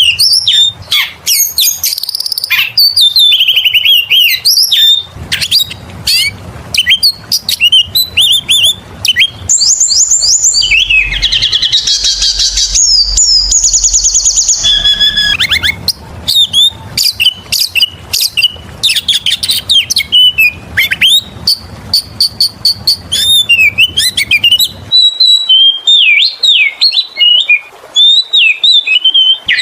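Oriental magpie-robin (kacer) in full song: a loud, continuous string of quick, varied whistles, chirps and sliding notes, with a fast buzzy trill about halfway through.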